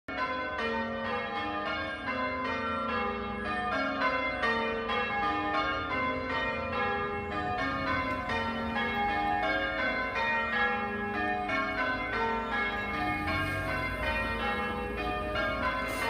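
Church tower bells pealing: many bells struck one after another in a quick, continuous sequence, each note ringing on under the next.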